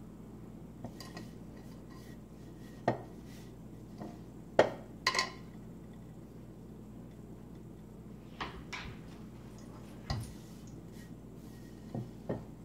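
Hands pressing dry, crumbly butter-cookie dough into a ball in a large ceramic mixing bowl: a handful of irregular knocks and clinks as the hands and dough bump against the bowl, the loudest about five seconds in.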